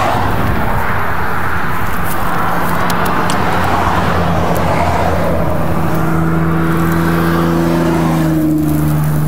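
A vehicle engine running steadily: an even low hum under a rushing noise.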